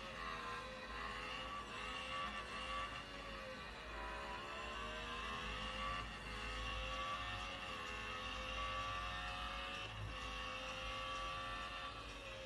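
A 3D printer's stepper motors running: a whine of several pitches that slowly slides up and down as the print head moves.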